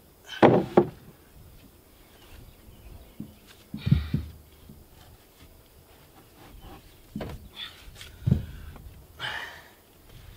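Handling of treated lumber boards: a few scattered knocks and thumps with short scrapes, spread out over the stretch.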